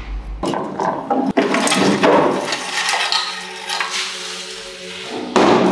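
Hand tools and metal engine parts clattering and scraping, with repeated sharp knocks, as a 1962 Vespa scooter's engine is unbolted and taken off the frame.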